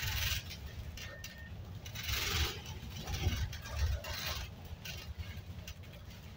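Low, steady rumble of a bus, with two short hisses about two and four seconds in.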